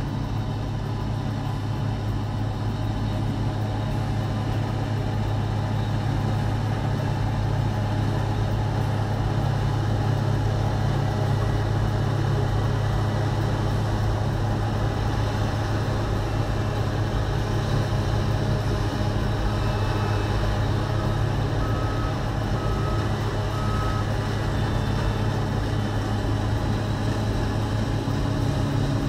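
John Deere 3650 tractor's diesel engine running steadily, heard from inside its open cab, as a deep drone. The engine noise of a New Holland CX820 combine harvester blends in and grows slightly louder as the combine nears. About two-thirds of the way through there is a faint string of about five short beeps.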